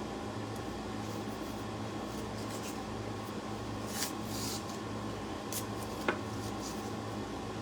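Blue painter's tape being pulled off the roll, torn and pressed onto a wooden board: a few short crackling rips about four and six seconds in, with a sharp click near six seconds. A steady background hum underneath.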